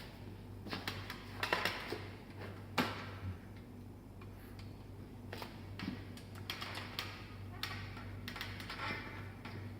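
Packing materials being handled and fitted around a bicycle frame: irregular clicks, taps and short crinkling rustles, over a steady low hum.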